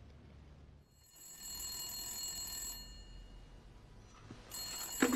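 Rotary desk telephone's bell ringing twice, each ring a steady metallic jangle about a second and a half long, the second beginning near the end.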